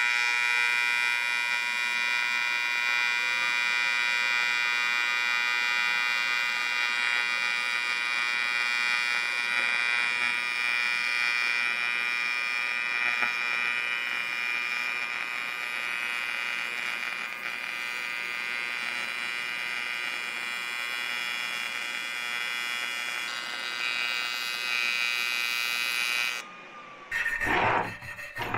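AC TIG welding arc on magnesium, a steady loud buzz that runs for about 26 seconds and then cuts off as the arc is broken. After it come quick scraping strokes of a wire brush scrubbing the fresh weld bead.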